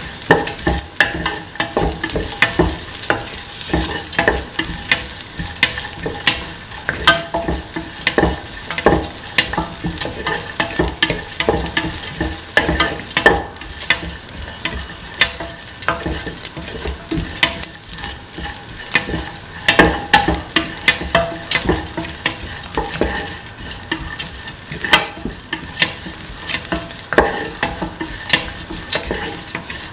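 Sliced onions and fennel seeds sizzling in hot oil in a stainless steel pan while being sautéed, with a steady frying hiss. The stirring utensil scrapes and clicks against the metal pan again and again.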